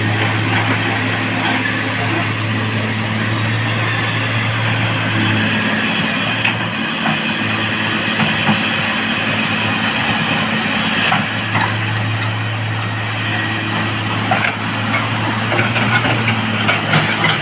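Heavy diesel machinery running steadily, a low engine hum over constant mechanical noise. The hum eases off for a few seconds in the middle and then comes back.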